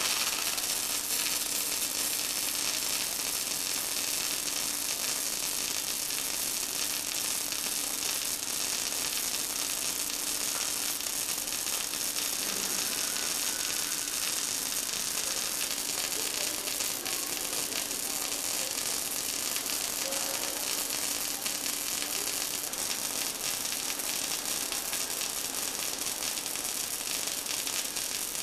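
Robotic MIG welding arc crackling and sizzling steadily as the torch runs a bead around a steel end plate. A faint steady hum underneath drops out about three-quarters of the way through.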